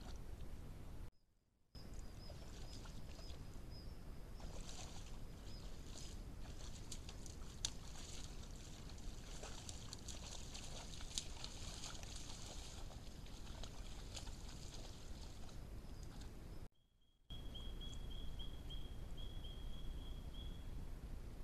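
Water splashing and sloshing as a sambar deer wades in a muddy wallow, with scattered clicks, over the steady hiss of a trail camera's microphone. The sound drops out twice for a moment.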